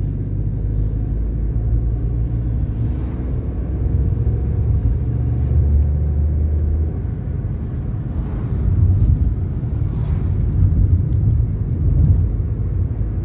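Inside a moving car's cabin: a steady low rumble of the engine and the tyres on the road, with a low drone that swells a little a few times.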